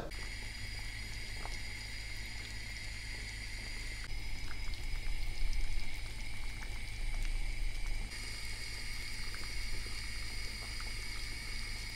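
Whole chicken boiling in a pot of water on a gas stove: faint bubbling and scattered small pops over a steady high hum. The background changes slightly about four and eight seconds in.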